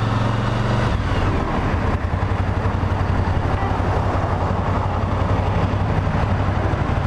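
Motorcycle riding at highway speed: a steady engine hum under heavy wind rush on the microphone. About a second in, the engine tone changes and the rush takes over.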